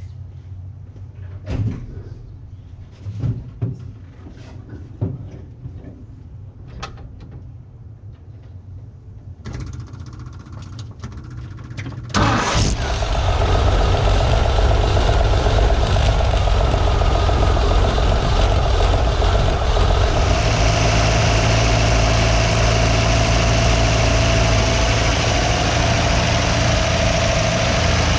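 Old Ford truck engine being started with freshly fitted points, cap and rotor. It turns over quietly for several seconds, catches suddenly a little over twelve seconds in, then runs loudly and steadily.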